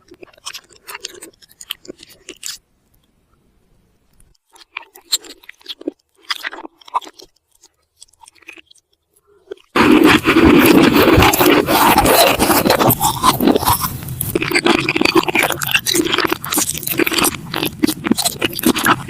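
Close-miked ASMR eating sounds: scattered mouth clicks and small crunches, then, about halfway, loud continuous crunching and chewing.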